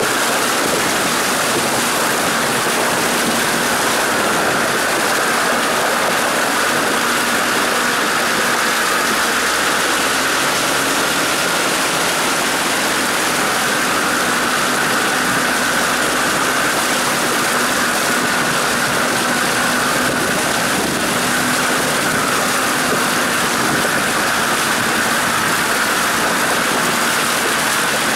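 Steady rush and splash of river water churned up around a Land Rover Defender's wheel as it wades upstream, with the engine running low underneath.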